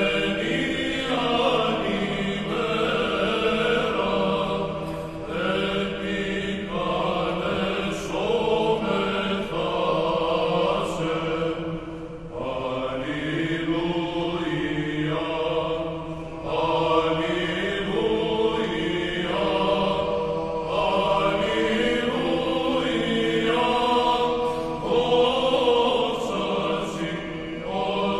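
A choir singing a slow sacred chant, voices holding long notes and sliding gently between pitches, with brief breaths between phrases.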